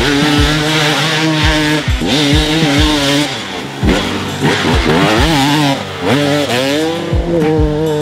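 2012 KTM 300 XC's two-stroke single-cylinder engine revving up and down repeatedly as the dirt bike is ridden hard, with music underneath.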